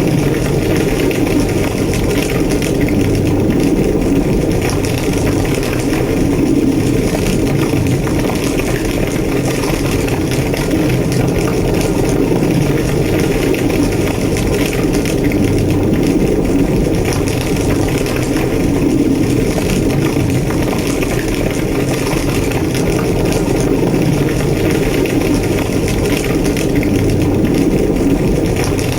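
Large structure fire burning, heard from inside the burning building: a steady low roar of flames with continuous fine crackling.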